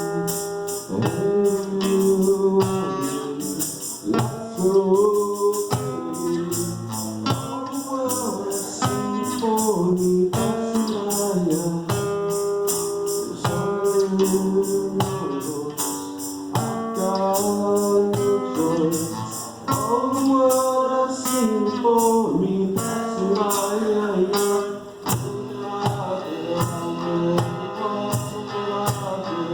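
Live acoustic band music: a male voice singing over acoustic guitar, with a tambourine keeping a steady beat.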